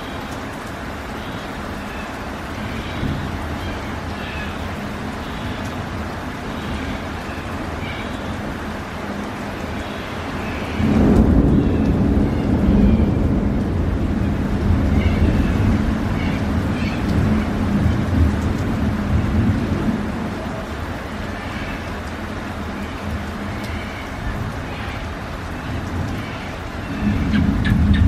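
Steady rain on a thunderstorm, with a long roll of thunder that breaks in about a third of the way through and rumbles for about nine seconds before fading back to the rain.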